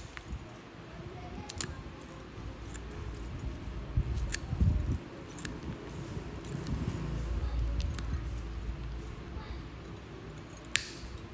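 Blue-handled nippers snipping through a thick, crumbly toenail: about six sharp snaps at irregular intervals, over low handling rumble.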